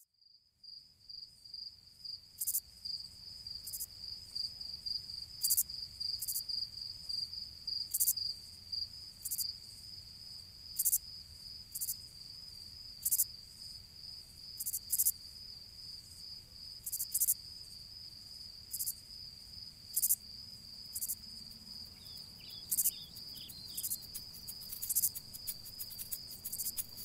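Cricket trilling steadily at one high pitch, with sharp high clicks about once a second that come thicker near the end, and a few short falling chirps late on.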